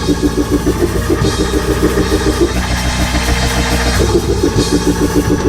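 Live church band playing fast, loud music on drum kit and guitar, with a quick repeated note pulsing in an even beat.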